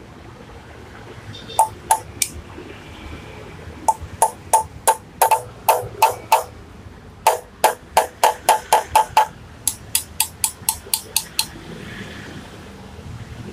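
Hammer tapping a sharpened steel punch against the bolts of a motorcycle's aluminium sprocket hub, to work the bolts loose. About thirty sharp, ringing metal strikes come in quick runs of several blows, with short pauses between the runs.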